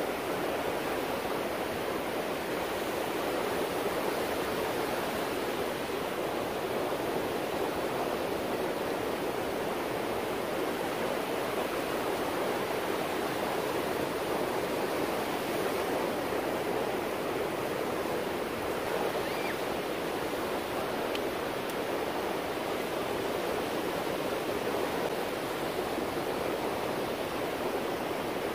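Surf washing onto a beach, heard as a steady, even rush of noise with no break.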